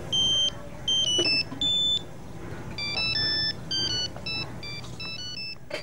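Mobile phone ringtone playing a melody of short, high electronic beeping notes, pausing briefly about two seconds in, over a steady low background rumble.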